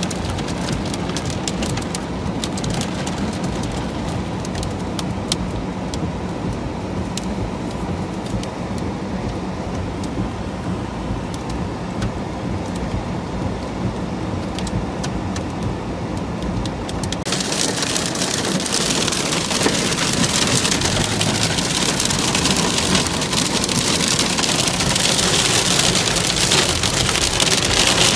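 Hail and heavy rain drumming on a car's roof and windscreen, heard from inside the car: at first a steady patter with many separate sharp ticks of hailstones striking, then about seventeen seconds in it suddenly turns much heavier and louder, a dense hiss that keeps building.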